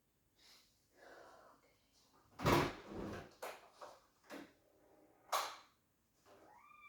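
Household knocks: a loud thump about two and a half seconds in, followed by four sharp clicks and knocks.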